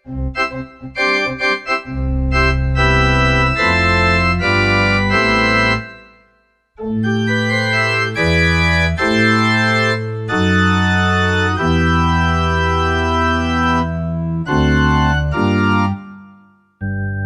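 Casio CTK-4200 arranger keyboard playing an organ tone: short notes at first, then held chords over a bass line, with a break about six seconds in and another near the end.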